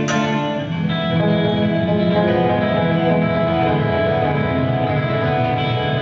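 Instrumental music led by electric guitar: held chords and sustained melody notes over a bass line, moving to a new chord about a second in.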